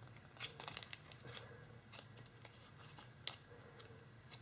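Faint crinkling of tissue foil (kitchen foil laminated with tissue paper) being pinched and creased between fingertips, with a few scattered small crackles.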